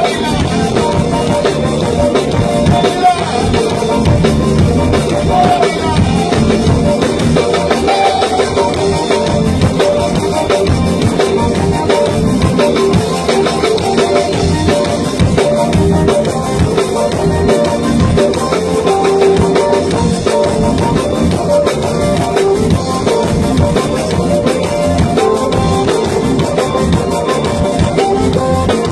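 Zydeco band music with a steady drum-kit beat: an instrumental passage with no sung words.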